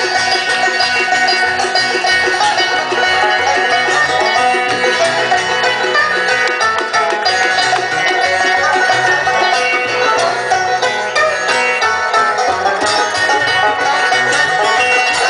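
Live bluegrass band playing a fast instrumental old-time tune on banjo, fiddle, mandolin, acoustic guitar and upright bass.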